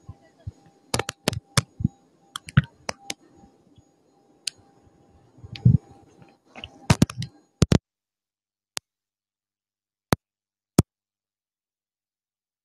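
Irregular sharp clicks and knocks over a faint hum and thin steady tone. About seven and a half seconds in, the sound drops out to dead digital silence, broken only by three single clicks: the live stream's audio cutting out.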